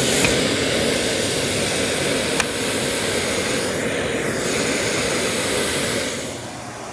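Miele Boost CX1 bagless canister vacuum cleaner running at maximum suction through its floor brush, a steady loud rushing of air with a single click about two and a half seconds in. Its sound drops somewhat near the end.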